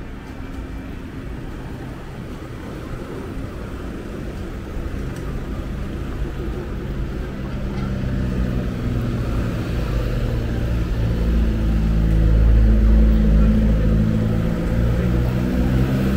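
A motor vehicle's engine running at low revs, a low hum that grows steadily louder as it comes close, loudest in the last few seconds.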